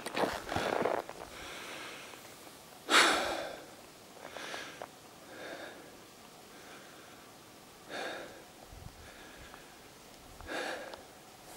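A person breathing hard, one noisy breath every second or two, the loudest about three seconds in.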